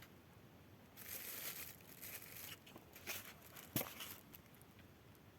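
Faint rustling and crinkling of skeins of silk embroidery thread on paper cards being handled, in two short spells, with one small click near the end.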